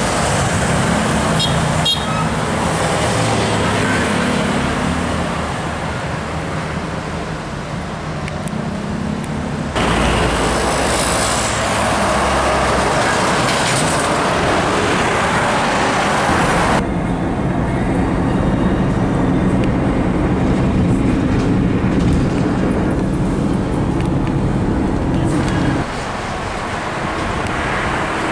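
Heavy diesel tractor-trailer trucks and highway traffic passing close by, with a low engine hum and tyre noise. The sound changes abruptly several times, as separate roadside clips are cut together.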